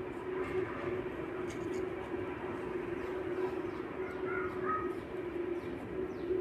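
A steady low mechanical hum with a constant drone over background hiss.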